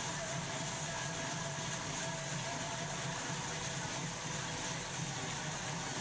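Indoor wheel-on bike trainer whirring steadily under a road bike's rear tyre as the rider pedals at an even cadence, with a steady hum and hiss.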